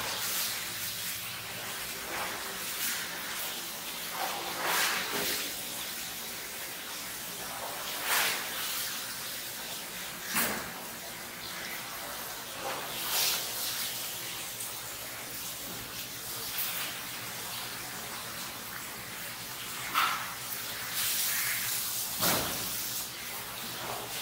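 A butcher's knife slicing and scraping through a hanging goat carcass, giving short irregular scraping and tearing sounds every couple of seconds over a steady low hum.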